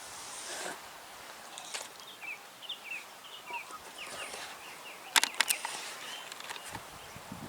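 A bird calling in a quick series of short chirps, with a few sharp clicks about five seconds in.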